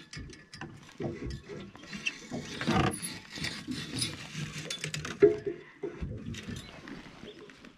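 Fishing rods and reels being handled and pulled from the rod storage of an aluminium boat: irregular clicking, rattling and knocking, with one sharp knock about five seconds in.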